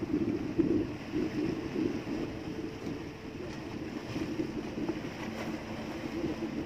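Water splashing and sloshing against the wooden hull of an outrigger fishing boat as a tuna is tied alongside, over the steady running of the boat's engine.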